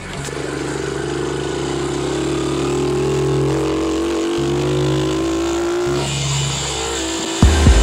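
Dirt bike engine under way, its pitch climbing steadily as the bike accelerates, then dropping back about six seconds in. A few loud low thumps come near the end.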